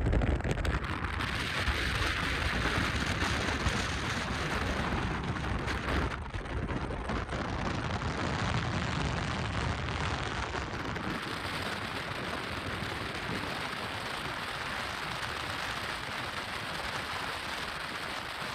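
Steady rush of flowing water, an even hiss with no break.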